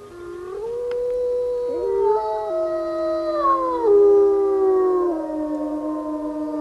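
Gray wolves howling together: several long, overlapping howls held at different pitches, each sliding or stepping down in turn, loudest about four seconds in.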